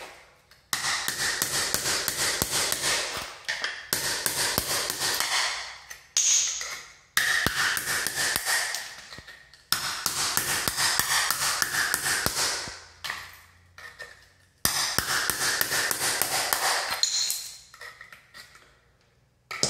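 A small sledge hammer beats on a steel cold chisel, chipping travertine tile off a concrete subfloor. The strikes come rapidly in runs of two to three seconds with short pauses between, each blow ringing.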